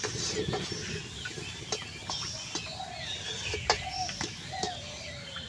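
Metal spatula scraping and knocking against a metal kadai at irregular moments while stirring a thick, crumbly semolina mixture, with one louder knock about two thirds of the way through. Birds chirp in the background.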